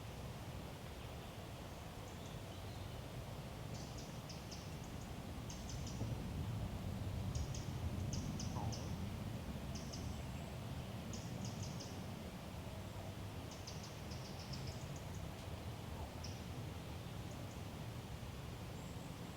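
Birds chirping: short clusters of quick, high-pitched notes repeating every second or so, over a steady low rumble that swells slightly about halfway through.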